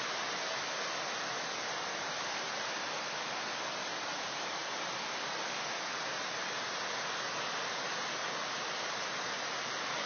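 Whitewater of a small waterfall and rapids rushing over rocks: a steady, even rush with no breaks.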